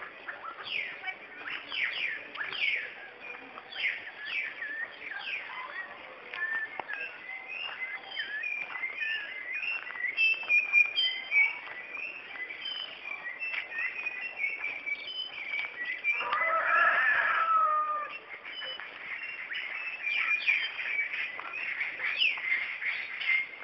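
Dawn chorus: many birds chirping and calling over one another in quick, short, falling notes. About two-thirds of the way through, a louder, lower call lasting about two seconds rises above them.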